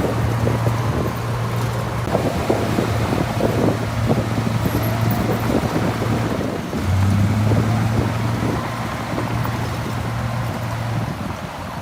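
Heavy earthmoving machine's diesel engine running with a steady low drone and irregular clanking in the first half. The drone drops out briefly a little past halfway, then comes back.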